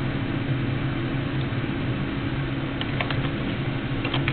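A few computer keyboard keystrokes, short sharp clicks from about two-thirds of the way in, as a filename is typed. Under them runs a steady low hum.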